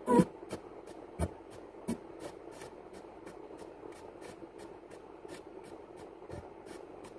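Car stereo sweeping the AM band as a spirit box: steady static with a regular ticking about three times a second as it steps through stations, and a few short snatches of broadcast sound breaking through. The loudest snatch is right at the start, and the uploader marks it as the word "here".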